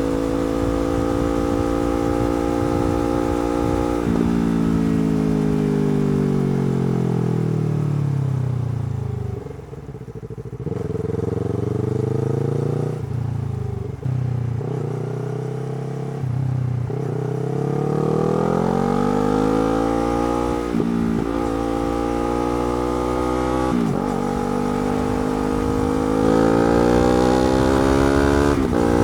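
Yamaha R3 parallel-twin engine with a slip-on exhaust: it holds a steady speed, then its note falls as the bike slows to low revs for several seconds with a few short blips. It then pulls away, revs climbing through the gears with a brief break at each upshift.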